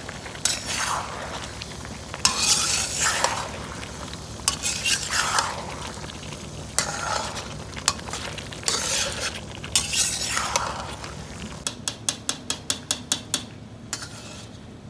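Metal slotted spatula scraping and stirring chicken in a steel wok while it sizzles in oil and spices, in broad strokes every second or two. Near the end comes a quick run of light metal clinks of spatula against wok.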